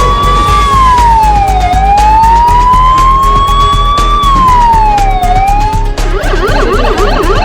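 A wailing siren that rises slowly in pitch for about three seconds and then drops quickly, twice, over a steady low electronic beat. About six seconds in the siren stops and fast warbling electronic tones take over.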